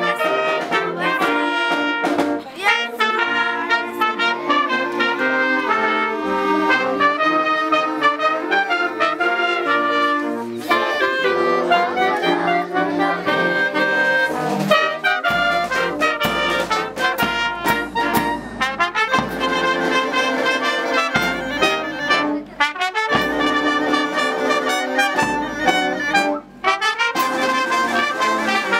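A youth symphonic wind band playing a town anthem: saxophones, clarinets, trumpets and sousaphone in full sustained chords, with drums.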